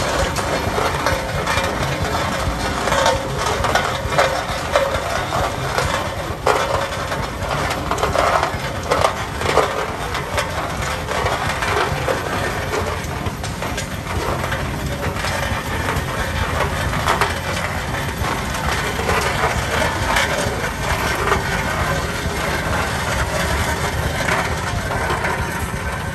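Steel wheels of a Case steam traction engine rolling slowly over gravel, a steady crunching with many small crackles and pops as the stones are crushed.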